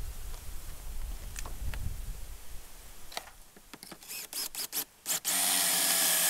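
Cordless drill with a stepped pocket-hole bit boring into a board clamped in a Kreg pocket-hole jig. A low rumble and a few clicks come first, then several short trigger bursts, and about five seconds in the drill runs steadily as it bores the hole.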